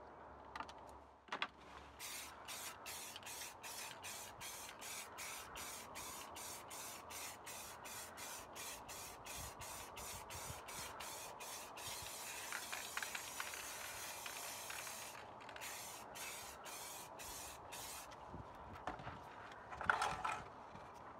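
Aerosol spray-paint can sprayed in quick short bursts, about three a second, then in one steady hiss lasting about three seconds, then a few more short bursts. Near the end there is a loud hard clatter.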